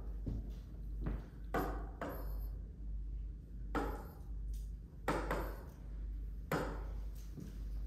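Short scratchy strokes of writing on a board, several of them a second or two apart, over a steady low hum.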